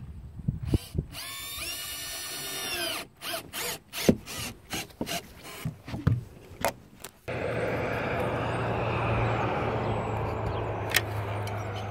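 Cordless drill/driver spinning up, running for about a second and a half and winding down, then several short bursts and clicks as it drives wood screws through a solar panel mounting foot into the RV roof. About seven seconds in, the sound cuts suddenly to a steady noise with a low hum.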